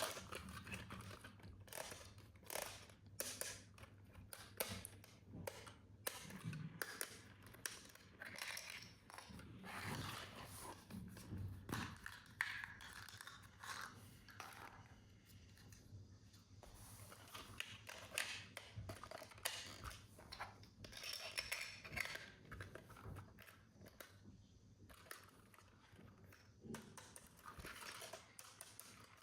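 Faint, scattered clicks, scrapes and rustles of hands unpacking a toy from its packaging.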